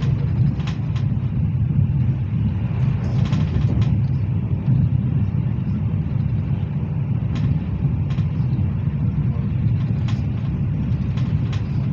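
Hyundai Rotem HRCS2 electric train running at speed, heard inside the passenger car: a steady low rumble of wheels on rail, with a few faint clicks scattered through it.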